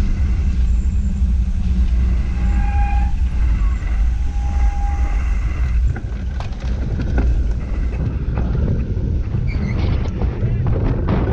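Motocross motorcycle engines running with a deep, steady rumble. Two short, high, steady tones sound a few seconds in.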